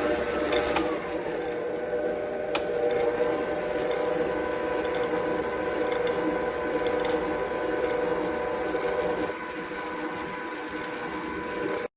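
COOKLEE 660 W electric stand mixer running steadily, its motor and gears giving a whine that drops in pitch in the first second or so, with light clicks now and then.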